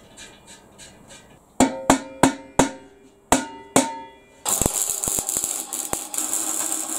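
About six ringing hammer blows on steel, irregularly spaced. After them a steady harsh rushing noise with a few clicks starts suddenly and runs on.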